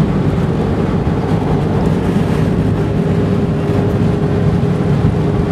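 Steady road noise inside a car driving at highway speed: tyre and engine rumble with a steady hum running through it.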